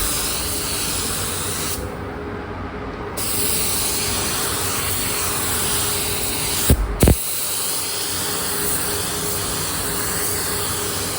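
Steady hiss of paint being sprayed. The high part of the hiss drops away for about a second and a half early on, and near the middle it stops briefly between a few sharp knocks.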